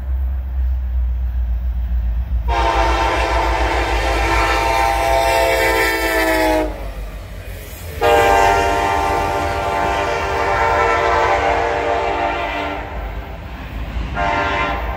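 Multi-note air horn of diesel freight locomotives (a CN SD70M-2 and an IC SD70) sounding two long blasts and then the start of a short one, the opening of a grade-crossing signal. Under the horn the locomotives' diesel engines rumble steadily as the train passes close by.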